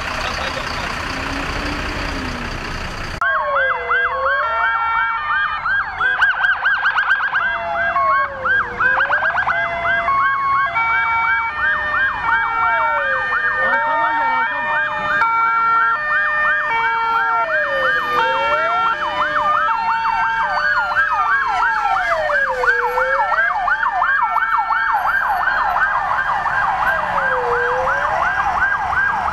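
Several emergency sirens from a departing convoy of fire engines and rescue vehicles, sounding together. Slow rising-and-falling wails, fast yelps and a hi-lo two-tone overlap. They start abruptly about three seconds in, after a steady engine rumble.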